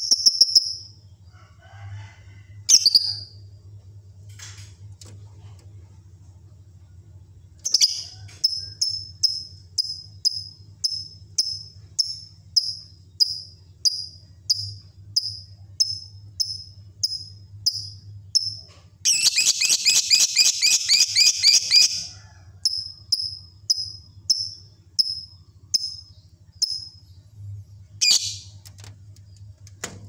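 Caged lovebird chirping: a run of short, high chirps about one and a half a second, broken a little past the middle by about three seconds of rapid, dense chattering trill. A faint steady low hum runs underneath.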